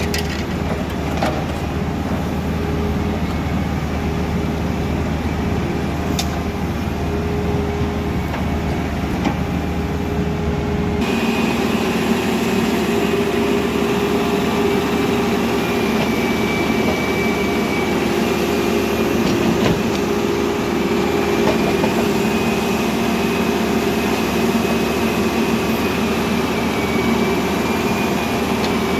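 Caterpillar backhoe loader's diesel engine running steadily while working. The sound changes abruptly about eleven seconds in, with less low rumble and a thin high whine afterwards.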